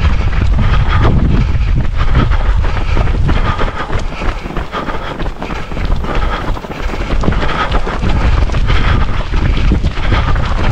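Wind buffeting the microphone of a camera carried by a runner, a loud steady rumble.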